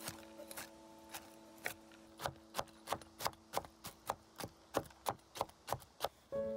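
Chef's knife chopping walnuts on a wooden cutting board: sharp knocks of the blade on the board, a few at first, then a steady run of about three a second from about two seconds in.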